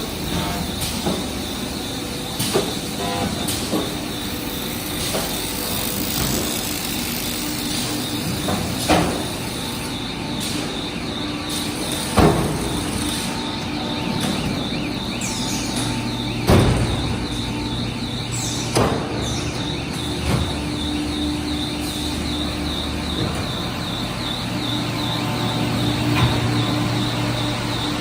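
Corrugated fin forming machine running: steady mechanical noise and hum with a fast repeating ticking, and a sharp metal clank every few seconds.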